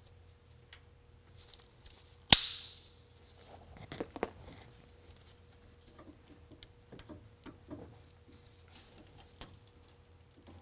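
Plastic air line and fittings handled and cut by hand: one sharp, loud snap about two seconds in, then scattered light clicks and rustles.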